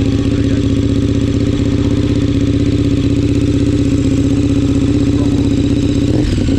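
KTM 1290 Super Duke R's 1301 cc V-twin, fitted with an aftermarket slip-on exhaust, idling steadily just after being started, then beginning to rise in revs right at the end.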